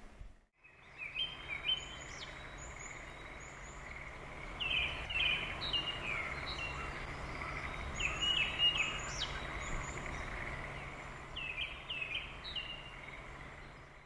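Japanese thrush singing: quick runs of varied, clear whistled notes with thin high squeaks mixed in, in about four bouts with short pauses between them. A steady background hiss and low hum lie under the song.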